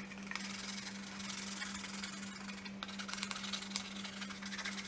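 Pink chalk scratching and rubbing on a paper card as a heart is coloured in, a faint, fast, scratchy rasp of many short strokes.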